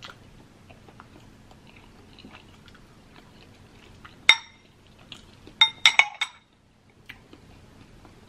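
Metal fork clinking against a ceramic plate: one sharp, ringing clink about four seconds in, then a quick run of three or four clinks a second and a half later. Soft chewing sounds fill the gaps.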